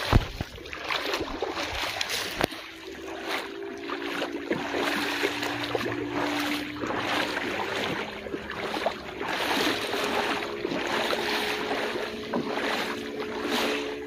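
Sea waves washing over a pebble beach, with the steady hum of a motorboat's engine out on the water starting about two seconds in.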